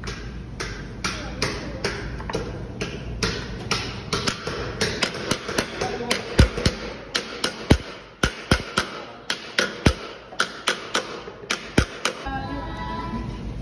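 Wooden mallet beating a pewter dish on a hollowed wooden block, hand-shaping it into a bowl: a steady run of sharp knocks, about two or three a second, that stops near the end.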